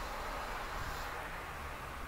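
Steady low rumble and hiss of wind buffeting the microphone.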